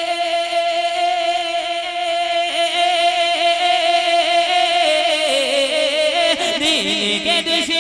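Male naat singer holding one long sung note with a slight waver, then winding down through an ornamented, falling run of notes near the end.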